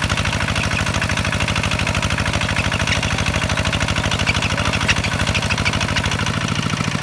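Kubota walking tractor's single-cylinder diesel engine running steadily with a fast, even chugging beat.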